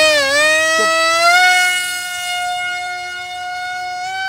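Electric RC model jet's motor whining at full throttle as it is launched. The pitch settles after about a second and a half, and the sound grows fainter as the plane flies off.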